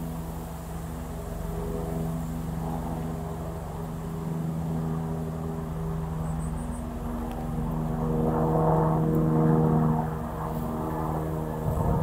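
Steady engine drone: a low hum at an even pitch that swells about eight seconds in and eases again near the end.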